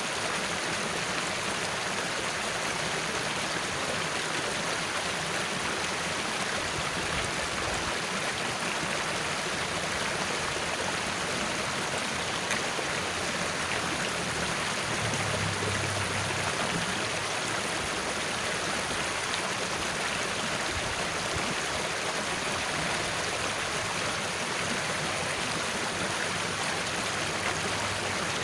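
Water of a narrow irrigation ditch rushing and rippling steadily over its shallow bed.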